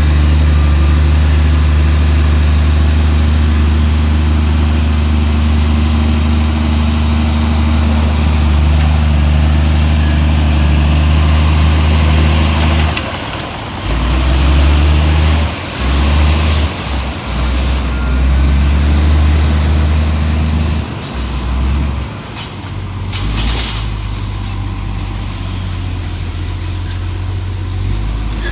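Heavy diesel engine of earthmoving machinery running steadily for about the first half, then rising and falling unevenly as the load changes, with a couple of short bursts of noise in the second half.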